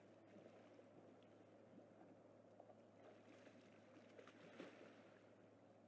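Faint water splashing and sloshing as a tiger wades through a pond and swats a floating ball, with a couple of louder splashes about three and four and a half seconds in, over a low steady hum.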